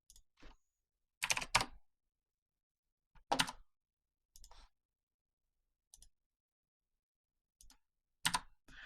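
Scattered computer keystrokes and mouse clicks while working in CAD software: about eight short, separate clicks, the loudest pair about a second and a half in.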